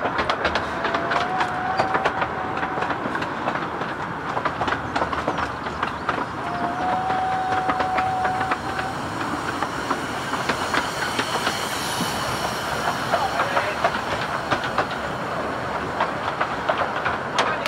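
A 15-inch-gauge miniature railway train running, heard from an open coach: the wheels clatter and click irregularly over the rail joints and pointwork. A steady whining tone comes in twice for about two seconds each.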